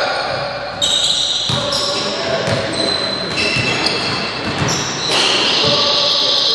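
Indoor pickup basketball on a hardwood court: the ball bouncing, sneakers squeaking and players' voices, echoing in a large hall. From about five seconds in, a steady high tone sounds.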